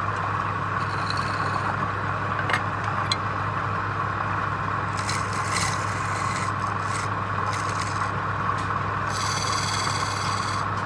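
Woodturning lathe running steadily with a constant hum. A turning tool scrapes against the spinning wood in short passes, chiefly in the middle and near the end.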